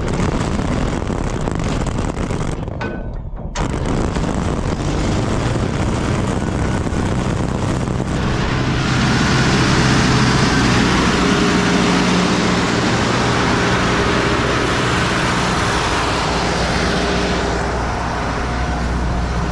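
Irrigation well's engine-driven pump unit running loud, a steady mechanical drone that grows louder and harsher about eight seconds in.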